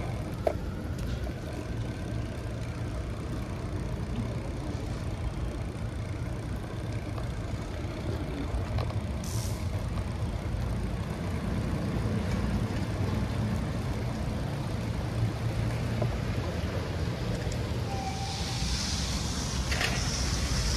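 Steady low rumble of wind on the microphone and tyres on wet pavement while riding a bicycle along rain-soaked streets, with a louder hiss of water spray near the end.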